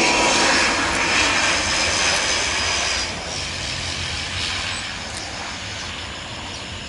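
Jet airliner's engines passing close, a loud rushing noise with a faint high whine, which drops off about three seconds in and keeps fading as the aircraft moves away.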